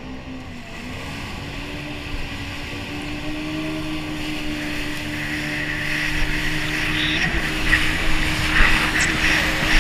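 Yamaha jet ski engine running under throttle and building speed, its steady drone getting gradually louder. A rush of water spray and wind over the hull grows with it in the second half.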